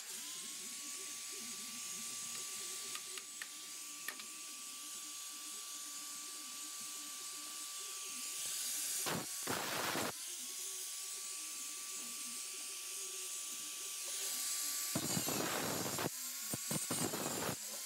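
Angle grinder with a cut-off wheel spinning up to a steady high whine three times, with two harsh stretches of the wheel cutting through the steel bedside panel, about halfway through and near the end.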